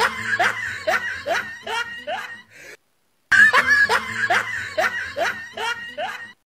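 A person laughing in a quick run of short, rising 'ha' sounds, about three a second. It comes in two stretches of about three seconds each, with a brief silent break between them.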